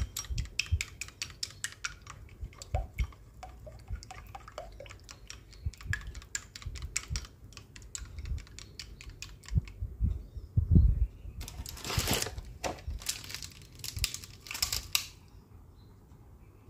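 An egg being beaten by hand with a utensil in a glass bowl: fast, even clicking of the utensil against the glass, about six clicks a second, fading out about halfway. Several louder rustling noises follow near the end.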